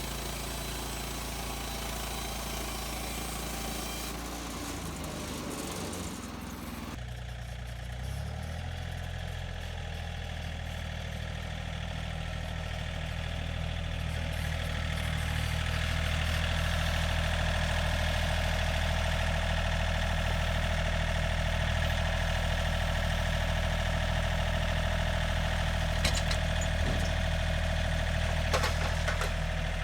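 Engine of a Woodland Mills HM130 Max portable bandsaw mill running steadily. Its tone changes about seven seconds in, and it grows louder over the next several seconds, with a few sharp clicks near the end.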